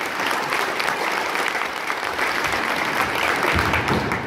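Audience applauding: many hands clapping.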